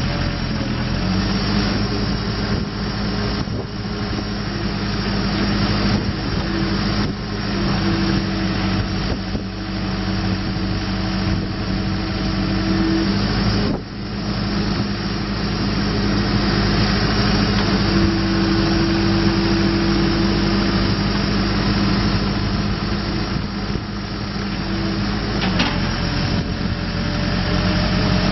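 2006 Case 580SM-II backhoe loader's diesel engine running steadily. A higher steady note comes in twice for several seconds and then drops away.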